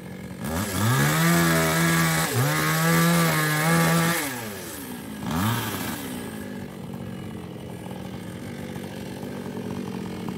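Small New West two-stroke chainsaw revving to full throttle and cutting into a sengon log for about four seconds, with a brief dip in revs partway, then a short blip of the throttle before it settles to a steady idle.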